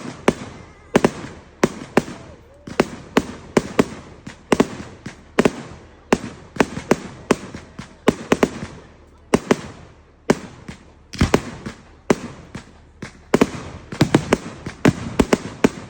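Fireworks going off in uneven volleys of sharp bangs, several a second, with short gaps between clusters.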